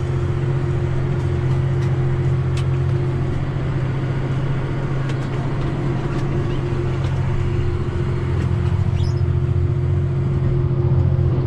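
John Deere tractor engine running at a steady working speed while it pulls a fertilizer spreader slowly across a bumpy pasture, an even low drone with a steady hum above it and a few faint rattles.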